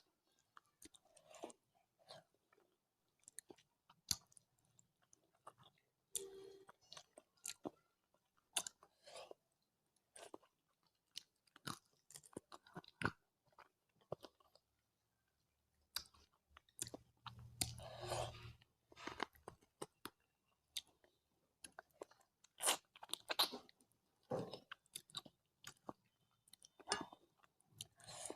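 Close-up chewing and mouth sounds of someone eating rice with curry, made of many short, irregular crunches and clicks, busiest a little past the middle.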